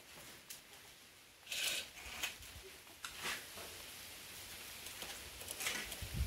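A few short scrapes and rustles from hose and wood being handled, the loudest about one and a half seconds in, with a low thump near the end.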